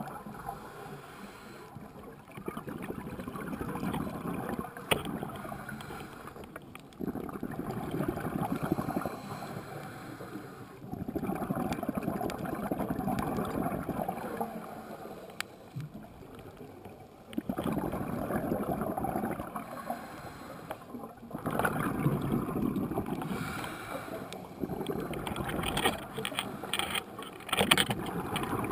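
Scuba diver breathing underwater through a regulator: exhaled bubbles gurgle up in bursts of two to three seconds, one about every four to five seconds, with quieter inhalations between them and a few faint clicks.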